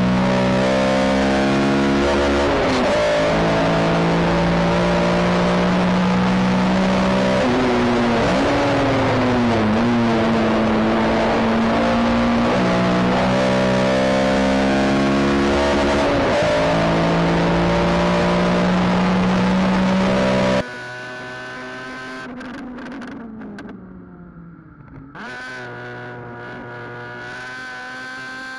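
Honda Civic Type R (FN2) 2.0-litre four-cylinder engine driven hard on track, its note holding at high revs and stepping up and down in pitch with gear changes and braking, over wind and tyre noise. About three-quarters of the way through the sound suddenly drops much quieter, and the engine note continues rising.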